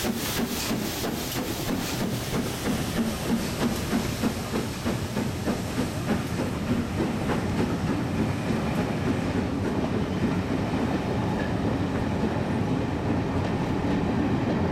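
LMS Princess Coronation class steam locomotive 46233 Duchess of Sutherland pulling away under steam. Its exhaust chuffs come about three or four a second and fade over the first couple of seconds as it draws off. Then its coaches roll past close by, wheels ticking over the rail joints.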